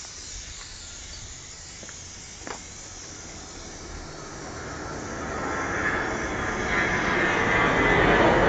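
A vehicle approaching, its noise growing steadily louder over the second half and loudest at the end, after a short click a couple of seconds in.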